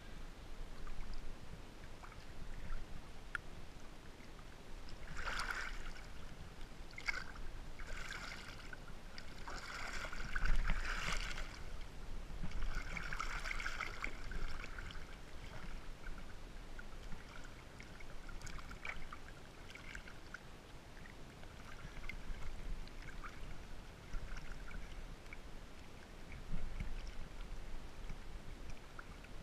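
Water sloshing and splashing against a GoPro's waterproof housing at the surface, heard muffled through the case over a low rumble. The splashing is busiest for several seconds in the middle, with lighter lapping before and after.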